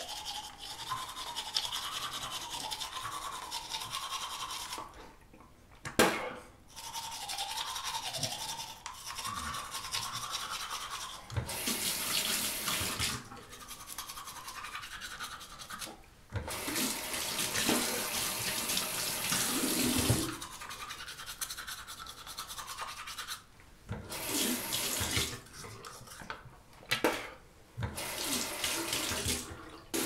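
Toothbrush scrubbing teeth with toothpaste in rhythmic back-and-forth strokes, in stretches broken by short pauses. A sharp tap, the loudest sound, comes about six seconds in, and the second half has shorter, noisier bursts.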